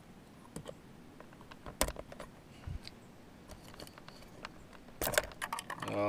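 Scattered small plastic clicks and rattles as the steering-wheel airbag module's wiring connectors are worked loose and unplugged, with the loudest cluster of clicks about five seconds in.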